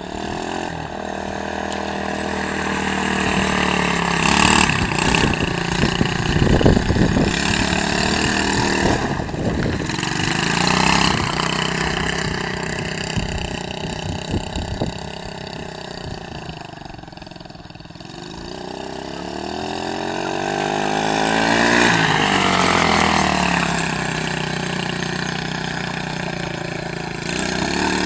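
Small youth quad's engine revving up and down as it rides, its pitch rising and falling with the throttle. It fades to its quietest about two-thirds of the way through, then grows louder and higher as it comes closer, with rough bursts of noise about four to seven seconds in.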